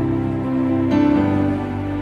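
Slow, soft background music of sustained held notes, moving to a new chord about a second in.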